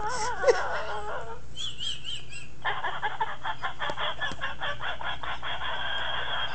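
A woman's wheezing, cackling laugh: high wavering squeals for the first second or so, a higher squeak, then from about two and a half seconds in a fast run of short, breathy wheezes.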